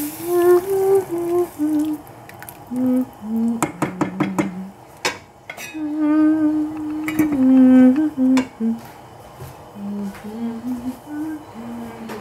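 A person humming a tune in held notes that step up and down, without words. Around the middle come a cluster of clinks and knocks of a spoon and a stainless steel saucepan and its metal lid as the soup is stirred and covered.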